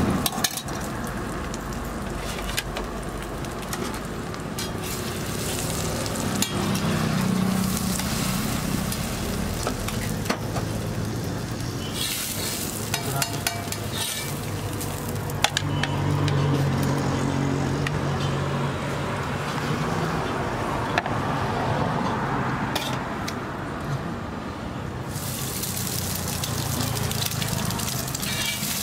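Egg frying on a large flat iron griddle, sizzling steadily, with a spatula scraping and tapping on the iron now and then.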